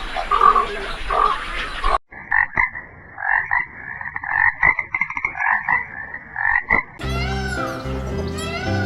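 Frogs croaking in a chorus of rapid, pulsed calls for about five seconds. It is cut in sharply after a different animal call in the first two seconds, and music with chirping bird-like sounds starts near the end.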